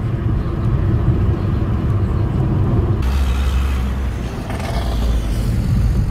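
Car driving on a road, heard from inside the cabin: a steady low rumble of engine and tyres. A deeper rumble comes in about halfway through.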